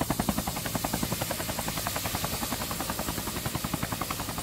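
Helicopter rotor beating steadily, about eight beats a second, over a steady low engine hum.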